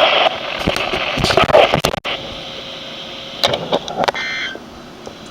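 Weather radio reception hiss with crackling and clicks, cutting out sharply about two seconds in. Near the end comes a short burst of warbling data tones, the start of the SAME end-of-message code that closes the test broadcast.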